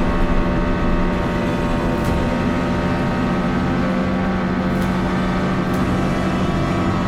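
Fishing boat's engine running steadily under way: a constant tone with many overtones over a rough, rushing rumble.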